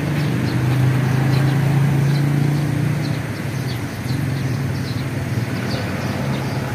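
A motor vehicle's engine running steadily, a low hum that eases slightly about three seconds in, with short high chirps over it.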